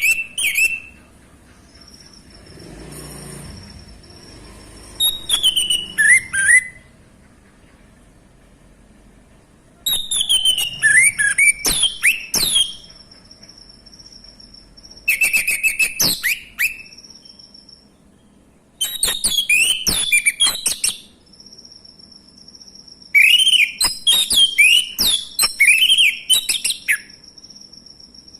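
Male orange-headed thrush singing in phrases of quick rising and falling whistles, about six bursts of song a few seconds apart, with a faint steady high tone beneath.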